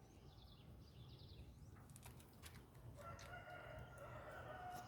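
A rooster crowing faintly: one long held crow beginning about three seconds in.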